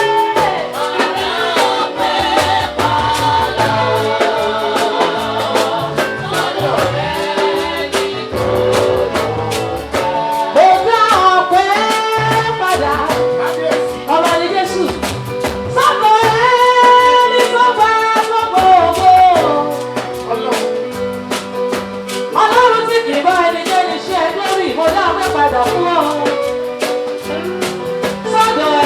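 Live gospel praise music: singing over a full band, with a bass line and steady percussion.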